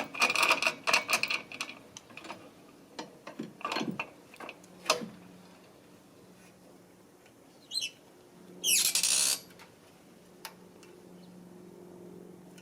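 Metal parts of a No-Mar tire changer clinking and clanking as the motorcycle wheel is tightened and locked onto the center post, with a few single knocks after. Near the end comes a short high rising squeak.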